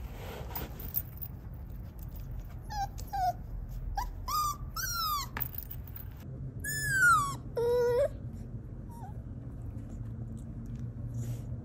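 F1 mini Goldendoodle puppy whimpering and crying in its crate after waking. First come a few short high whines, then longer falling cries, the loudest about seven seconds in, over a low steady hum.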